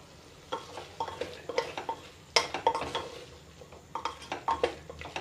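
Wooden spatula stirring vegetable masala in a pressure cooker, an irregular run of knocks and scrapes against the pot, the sharpest about two and a half seconds in.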